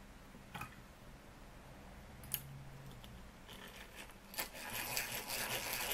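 A few light metallic clicks, then from about three and a half seconds in a rasping scrape: a hand drill's bit working against a small steel rivet head on a Mamod SE3 engine base. These rivets sometimes just spin with the bit instead of being cut.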